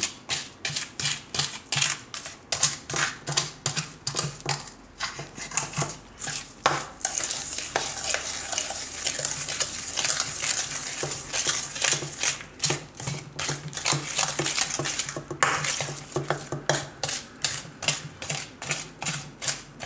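Steel spoon stirring and scraping mashed ripe banana and powdered sugar in a stainless steel bowl: quick, even strokes about three a second, clinking against the bowl, with a smoother stretch of continuous scraping in the middle.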